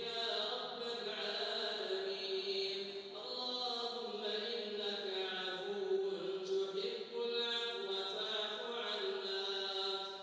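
Quran recitation: a single voice chanting Arabic verses in long, melodic held phrases, with brief pauses for breath about three and seven seconds in.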